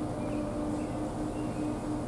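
Pickup truck's engine and road noise heard from inside the cab while driving slowly: a steady low rumble with a constant hum, and a few faint high chirps.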